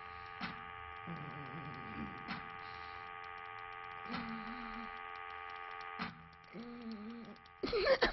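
Steady electrical hum of the film's imaginary machine, with a sharp tick about every two seconds and low wavering tones now and then. Shortly before the end, a sudden louder run of rapid clicks begins.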